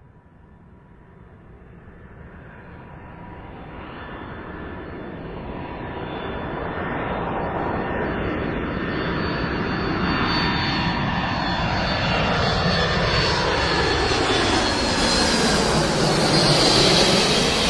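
Aircraft engine sound effect growing steadily louder as the plane closes in, with a steady high whine and a sweeping, whooshing sound that keeps shifting in pitch.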